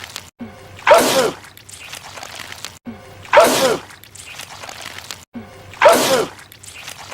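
A man sneezing loudly, the same sneeze repeating three times about every two and a half seconds, each with the voice dropping in pitch.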